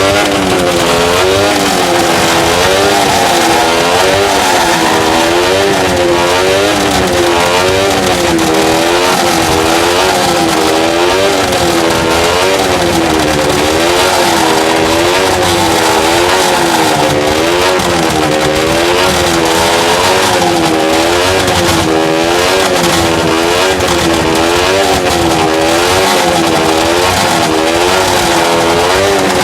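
Loud two-stroke motorcycle engine being revved up and down in a quick, steady rhythm, its pitch rising and falling about one and a half times a second.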